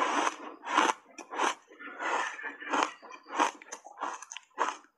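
Dry block ice coated in matcha powder crunching as it is chewed, a run of short sharp crunches about two a second.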